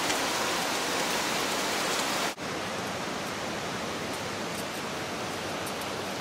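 Steady rushing of water, with a sudden break about two seconds in, after which it continues a little quieter.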